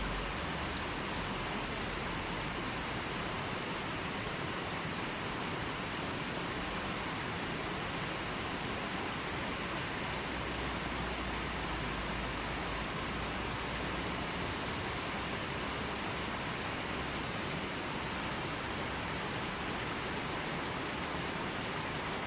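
Steady, even rush of water, unchanging throughout, with no separate drops or splashes standing out.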